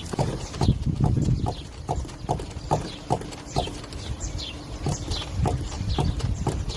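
Car front suspension knocking and squeaking in a steady series, roughly two to three clunks a second, each with a short high squeak. This is the metallic clunk and rubber squeak typical of a worn strut mount (top mount).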